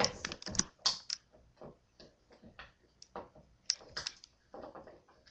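Irregular light clicks and taps, thickest in the first second and again about four seconds in.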